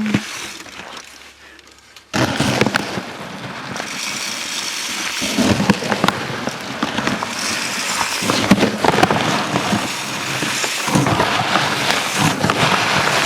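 Birdseed pouring and rattling into and spilling out of a bird feeder, a dense crackling patter of small grains that starts suddenly about two seconds in.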